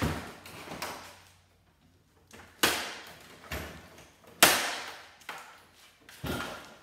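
Knocks and rattles of a CRT computer monitor's sheet-metal chassis and circuit board as the board is tugged and wrenched, four sharp knocks with the loudest about four and a half seconds in. The board won't slide out because a screw is still holding it.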